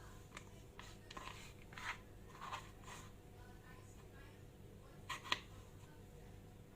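Faint scattered clicks and scrapes from hands and a knife working on cut pieces of aloe vera leaf, with a sharper tap a little after five seconds.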